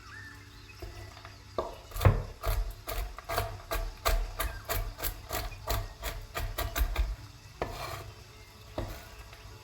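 Kitchen food preparation: repeated rasping strokes with dull knocks, about three a second. They start about two seconds in and stop near the end.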